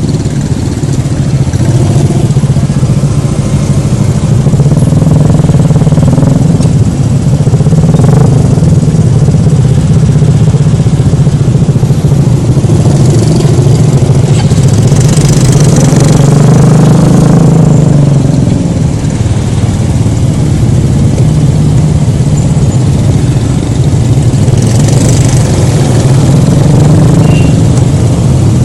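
Honda Scoopy scooter's single-cylinder engine running on the move, its note rising and falling a few times as the rider speeds up and eases off. The sound is picked up by a phone taped to the rider's helmet.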